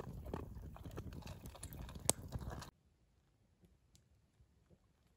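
A dog eating from a metal bowl, with close crunching and clicks and one sharp clink a couple of seconds in. After about two and a half seconds it gives way suddenly to faint, scattered crackles from a campfire.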